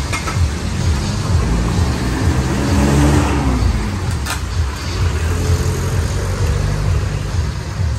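Street traffic: a motor vehicle's engine running close by, a low rumble that swells as a vehicle passes about three seconds in. A single sharp click comes a little after four seconds.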